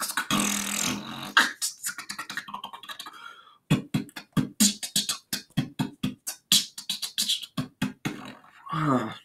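Vocal beatboxing: a person making kick, snare and hi-hat sounds with the mouth in a quick rhythm, with a brief gap about three seconds in. A longer pitched vocal sound comes just before it stops suddenly near the end.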